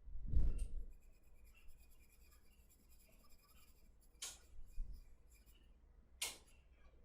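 Sketching strokes scratching on paper while dark tones are shaded in. A dull low thump comes just after the start, and two sharper, short scratchy strokes come in the second half.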